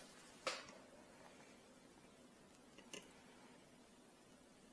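Near silence: room tone, broken by two small handling clicks, a sharper one about half a second in and a fainter one just before three seconds.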